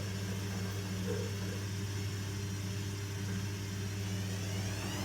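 Privileg washing machine running with a steady, even hum, the sign that the machine is working.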